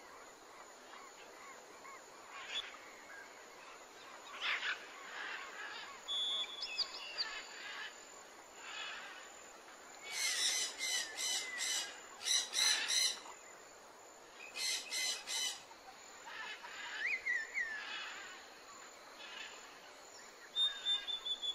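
Several small birds chirping and whistling, with bursts of rapid repeated notes about ten seconds in and again a few seconds later, over a faint steady hiss.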